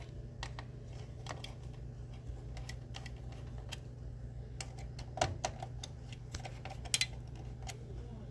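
Irregular small clicks and taps of computer parts being handled and fitted into a PC case, with a few sharper clicks in the second half, over a steady low hum.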